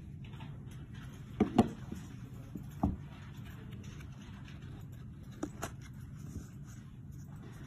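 Light knocks and clicks from a hinged jewelry box being opened, set down and its pendant insert handled: two sharp knocks about a second and a half in, another near three seconds, and two fainter clicks later, over a steady low hum.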